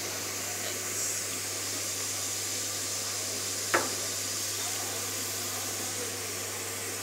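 Steady hiss of running air machinery with a low hum under it, and one sharp click a little before the middle.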